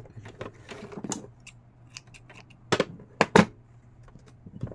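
Scissors snipping sewing thread at a sewing machine after a seam is finished: a series of sharp clicks, the loudest about three seconds in, with fabric being handled.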